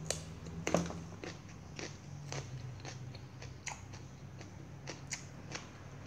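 A man chewing food close to the microphone, with short, crisp crunching clicks scattered irregularly through, over a steady low hum.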